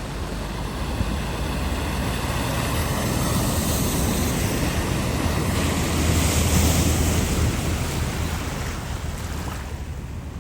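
A vehicle driving through deep floodwater: a low engine hum under rushing, spraying water that builds to a peak about six to seven seconds in, then eases off.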